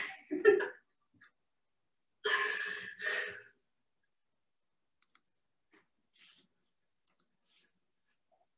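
A brief breathy vocal sound, then faint computer mouse clicks: short double clicks a couple of seconds apart.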